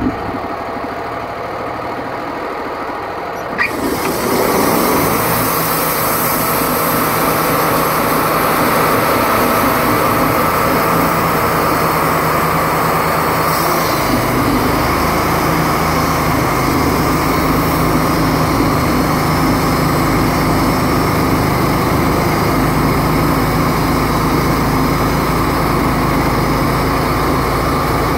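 Wood-Mizer LT35 band sawmill's engine running at low speed. About three and a half seconds in it steps up to full speed with the blade engaged, and the band saw runs steadily through the log, cutting a slab off it. The sound gets fuller and deeper about halfway through.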